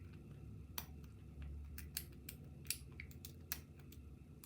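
Irregular sharp little clicks of a pick and tension tool working the pin stacks of a Securefast 6-pin half euro cylinder lock, about eight over a few seconds. It is a noisy lock to pick.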